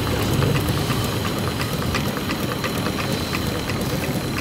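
Triple transferator Stirling (hot air) engine running steadily at about 140 rpm: a steady low rumble with a run of light, regular clicks.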